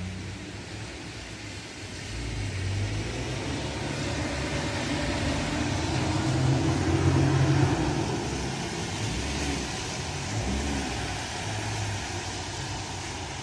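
Steady rain hiss with a car driving past on the wet street, its tyres swishing on the water, loudest about seven seconds in and fading after.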